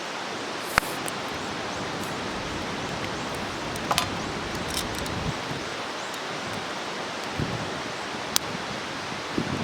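Wood campfire burning with a steady hiss and a few sharp crackling pops.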